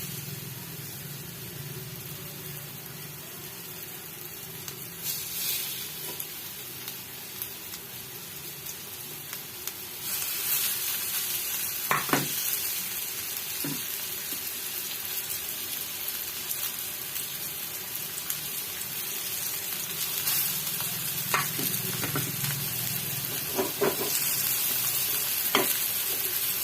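Rava-coated surmai (kingfish) slices sizzling as they shallow-fry in hot oil in a pan. The sizzle grows louder about ten seconds in, with a few light knocks scattered through it.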